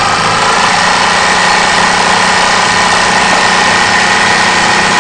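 Bernina 950 industrial sewing machine running at speed while sewing a decorative design stitch: a loud, steady whirr whose pitch rises slightly in the first second.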